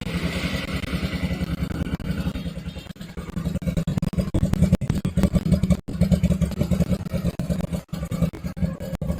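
Zongshen Cyclone RX1 motorcycle's single-cylinder engine running, its level rising and falling as the throttle is opened and closed.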